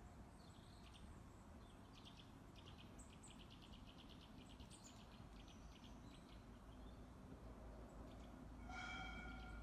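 Near silence: faint outdoor garden ambience with a low rumble, distant bird chirps and a rapid ticking trill early on, and a short pitched call near the end.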